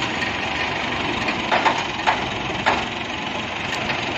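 Heavy machine engine running steadily, with four short sharp knocks in the middle.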